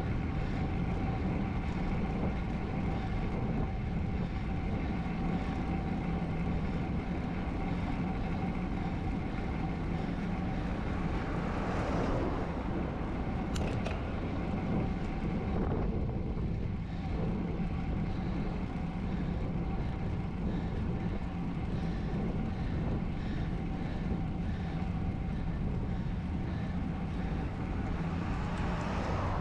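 Steady wind and road noise on a GoPro's microphone while riding a road bike. A louder rush swells and fades about twelve seconds in, and another builds near the end.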